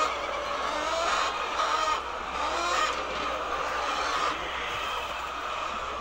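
A flock of white laying hens in their nesting boxes calling continuously, many overlapping voices at once as eggs are taken from under them.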